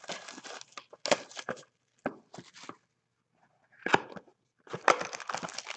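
Cardboard Playbook football card box being handled and opened: rustling and scraping of cardboard with a few sharp taps, in short spells with a pause about three seconds in.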